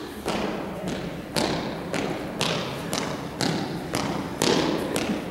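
Heavy dance steps stamping on a hard floor, about one a second, each thud ringing briefly in the large room.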